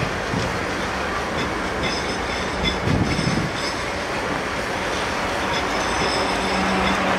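South Western Railway Siemens Desiro electric multiple unit running past, its wheels rolling steadily over the rails with clatter and a faint high wheel squeal. A louder clatter comes about three seconds in, and a low steady hum comes in near the end.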